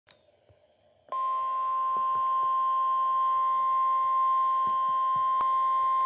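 NOAA Weather Radio warning alarm tone, the steady 1050 Hz tone, played through the speaker of a Midland S.A.M.E. weather alert radio. It starts sharply about a second in and holds on one pitch, announcing a severe thunderstorm warning broadcast.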